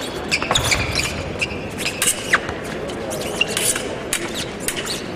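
Fencing footwork on the piste: shoes squeaking briefly and stamping, with sharp clicks and knocks scattered throughout, over the steady background noise of a large hall.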